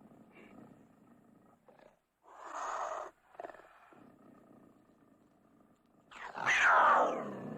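Cougar snarling: a short snarl about two seconds in with a brief second one just after, a low quieter sound between, then a loud snarl near the end that falls in pitch.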